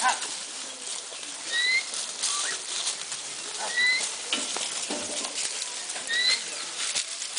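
A bird repeats a short, rising whistled note three times, about two seconds apart, over rustling and light knocks from a flock of goats and sheep grazing through brush.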